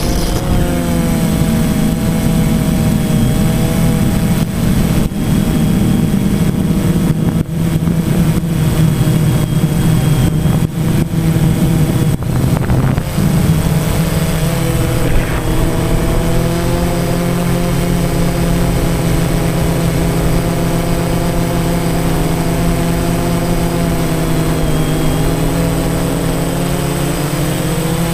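DJI Phantom quadcopter's motors and propellers humming in flight, picked up by the camera on the drone itself: a steady hum of several tones that shift slightly in pitch and rise near the end as the motors speed up.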